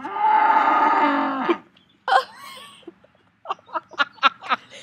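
A calf mooing: one long, loud call of about a second and a half that drops in pitch as it ends. A shorter call follows about two seconds in, and a quick run of short sharp sounds comes near the end.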